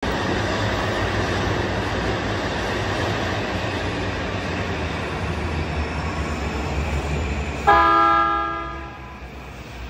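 Rumble of an E235 series electric train at the platform. About eight seconds in, the train sounds its horn once, a short blast of about a second and the loudest sound here, as it departs.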